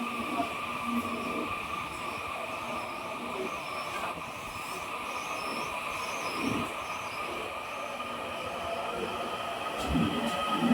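Taiwan Railway EMU800 electric commuter train running on the line, with a steady high whine over rail noise that grows louder near the end.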